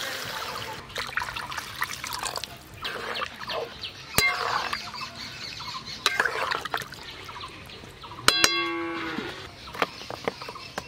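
Water poured from a clay jug into a metal wok of fried spice paste, mango and potato, then a spatula stirring and scraping through the thin curry. About eight seconds in, a cow moos once for about a second.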